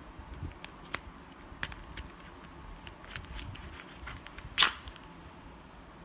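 Scattered light clicks and ticks from handling a plastic backpack-strap camera mount, with one much louder sharp snap about four and a half seconds in.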